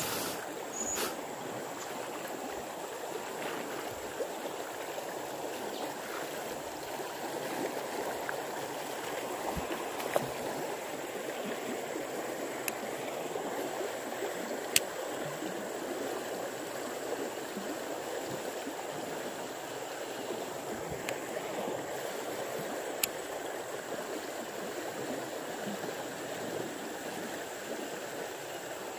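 Fast river rapids rushing steadily, with a few brief sharp clicks scattered through.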